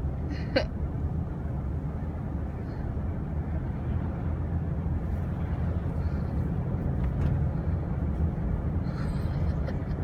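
Steady road and engine noise heard inside a moving car's cabin, with one brief, short sound about half a second in.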